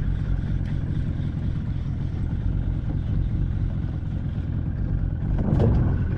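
Steady low rumble of wind on the microphone with small waves lapping at an open boat's hull, and a brief louder surge near the end.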